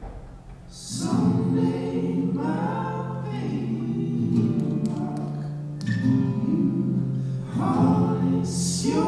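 Slow vocal music: sustained sung phrases over a low held drone. The singing comes in about a second in and swells again near the end.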